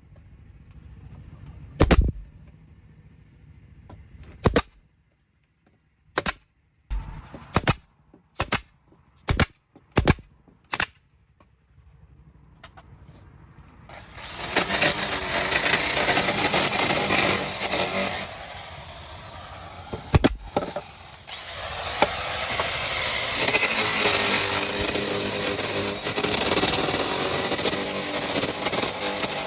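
About nine sharp knocks or taps, spaced about a second apart or less, then from about halfway a power tool running steadily and loudly, easing off briefly and picking up again.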